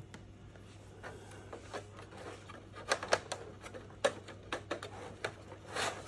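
Irregular clicks and knocks of plastic and metal parts as the opened housing of an LCD monitor is handled and shifted, over a steady low hum.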